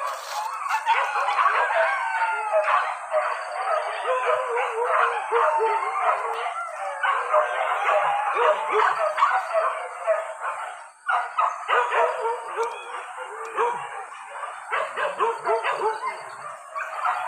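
A pack of boar-hunting dogs baying and yelping together, many overlapping calls with hardly a pause, dropping off briefly about eleven seconds in.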